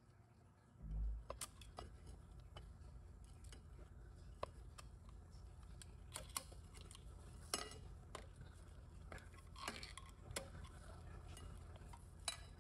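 Faint, scattered metal clicks and scrapes of a pick working a snap ring into its groove in a Subaru 5EAT clutch drum held under a spring compressor, seating the ring. A dull thump about a second in, then a low steady hum underneath.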